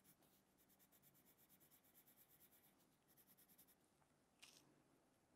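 Very faint scratching of a red coloured pencil shading on paper, in quick, even back-and-forth strokes. A brief, slightly louder scrape comes about four and a half seconds in.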